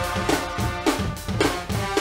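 Guggenmusik band playing: trombones and trumpets holding loud tones over a steady drum-kit and bass-drum beat.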